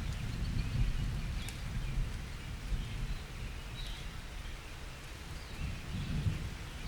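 Thunderstorm: a low thunder rumble dying away, then another rumble building near the end, over steady rain.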